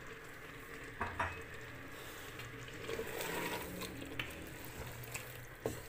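Boiled black chickpeas sizzling in freshly added oil in an aluminium pot while a wooden spoon stirs them, the start of frying them down. A few knocks of the spoon against the pot sound about a second in and near the end.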